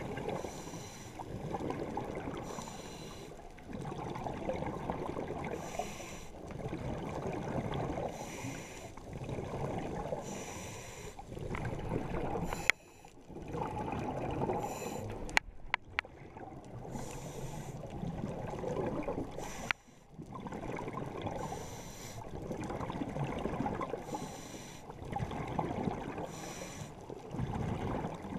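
Scuba diver breathing through a demand regulator underwater, heard muffled through a GoPro's waterproof housing. Each breath is a short hiss of air from the regulator followed by a rumbling, gurgling rush of exhaled bubbles, repeating every two to three seconds. A few sharp clicks come midway.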